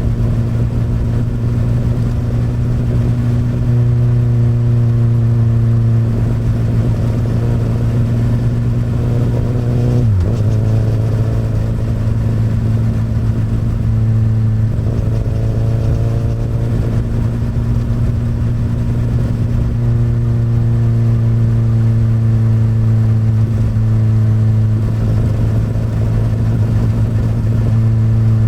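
Honda CBR1000RR SC59's inline-four engine running through an Akrapovic exhaust, holding a steady note while riding, with a brief dip in pitch about ten seconds in.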